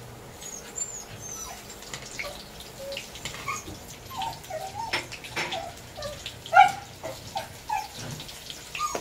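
Isaw (chicken intestines) deep-frying in a wok of bubbling oil, crackling, with many short squeaky whines through it that come more often in the second half.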